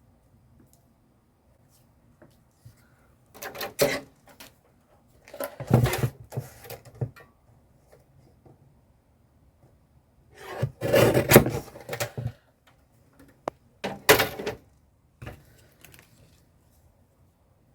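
Craft materials being handled and shifted on a table: rustling and knocking in about five short bursts, the longest ones around six and eleven seconds in, with quiet between.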